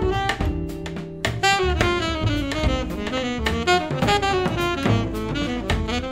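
Background jazz music: a saxophone melody over bass and drums.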